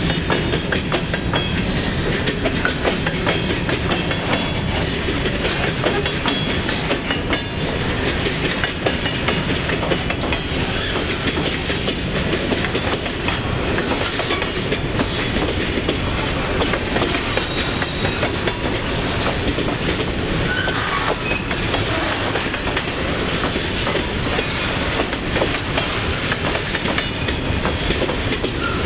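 A freight train of covered hopper cars and boxcars rolling past at close range: a steady rumble with rapid clicking of steel wheels over the rail joints.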